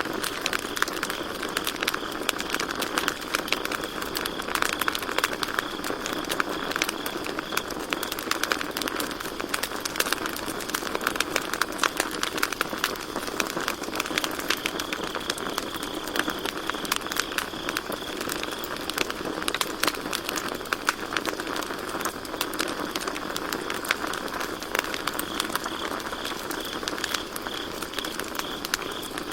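Campfire crackling and popping, with many small sharp snaps over a steady hiss of burning wood. Crickets chirp in a fast, high pulsing trill that fades in and out, strongest early on, in the middle and again near the end.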